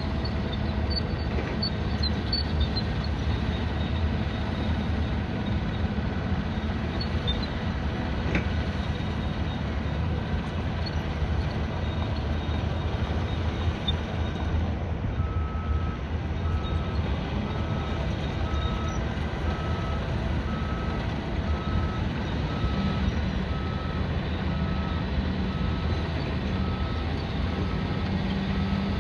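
Steady low rumble of vehicles. From about halfway through, a reversing alarm beeps at one steady pitch, about once a second.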